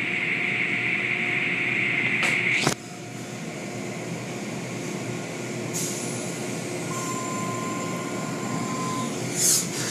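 Automatic tunnel car wash heard from inside the car: a loud hiss of water spraying onto the car cuts off suddenly about three seconds in, leaving the steady running noise of the wash machinery. A thin steady tone comes in for a couple of seconds near the end, and a short hiss follows.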